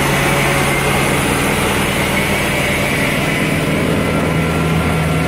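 Mercruiser 5.7L V8 marine engine running steadily at a fast idle, about 1100 RPM in neutral.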